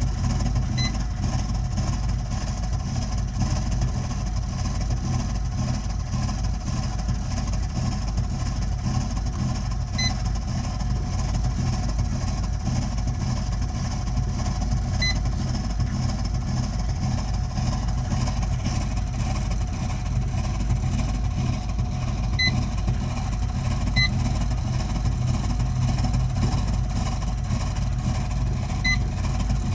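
Burnham Alpine gas condensing boiler running with a loud, steady low rumble, the noise that is its continuing fault. A few short high beeps sound now and then, at uneven intervals.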